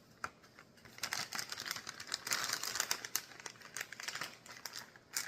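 A bag of Temptations cat treats being handled: crinkling plastic packaging with quick rattling clicks, starting about a second in.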